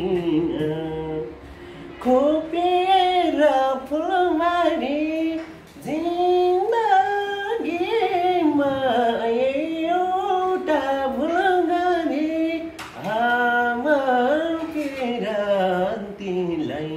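A man singing a Nepali lok dohori folk song unaccompanied, in a high register, with ornamented pitch that slides and wavers. He sings in phrases with short breaths between them.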